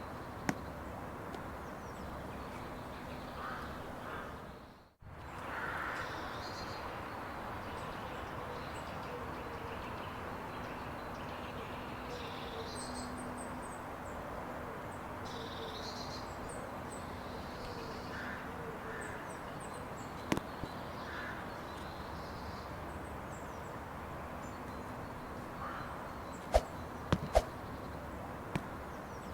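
Steady outdoor background ambience with birds calling now and then. It briefly fades out and back in about five seconds in, and a few sharp clicks come near the end.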